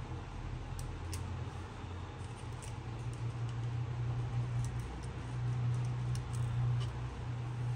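Scattered faint clicks of a small screwdriver and metal bracket parts being handled inside an opened iPhone 7, over a steady low hum.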